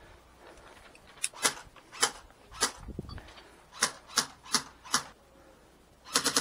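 Airsoft rifle firing: a few single shots spaced about half a second apart, then four quicker shots, then a rapid full-auto burst near the end.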